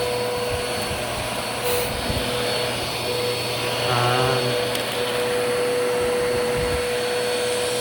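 Vacuum cleaner running steadily, a constant motor whine over a rush of air.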